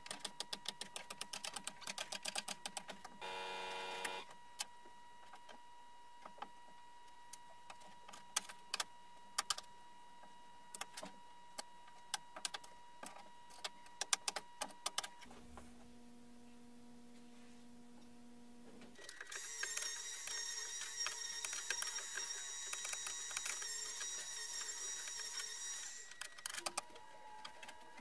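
Sharp mechanical clicks, at first in quick runs of several a second, then singly every second or so, while cloth is fitted over an MDF pool table bed. A steady, higher whirring noise takes over for several seconds later on.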